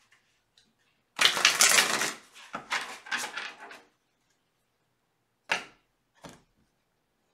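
A deck of tarot cards being shuffled: a dense, rapid patter of cards clicking together for about three seconds, loudest at first. Two short separate taps follow near the end.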